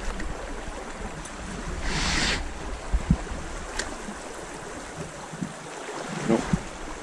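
Low wind rumble on the microphone by a small creek, with a short rush of noise about two seconds in and a few light knocks.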